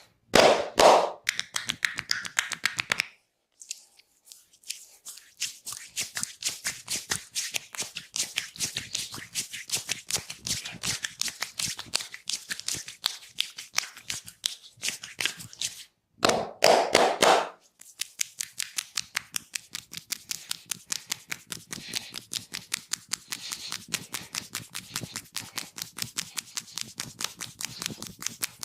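Hands striking the body in a fast, even rhythm of percussive massage strokes, several a second. There are two louder, denser flurries of strokes, one at the start and one about halfway through.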